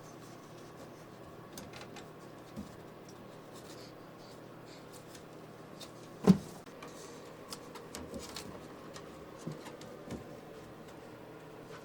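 A capuchin monkey moving about on wooden attic boards and furniture: scattered light knocks and taps over a faint steady hum, with one loud thump about six seconds in.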